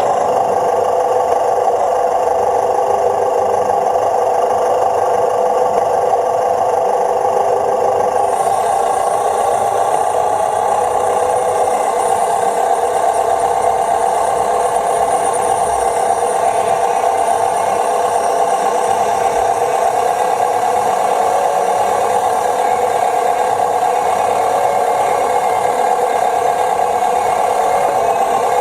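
Radio-controlled model tractors running: a steady mechanical drone with some rattle, its higher part changing slightly about eight seconds in.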